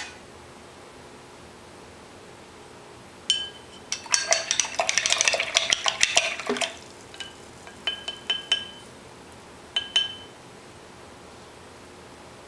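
Paintbrush swished and tapped against a glass jar of rinse water, clinking. A single tap, then a quick flurry of clinks and rattles about four seconds in, then a few separate ringing taps.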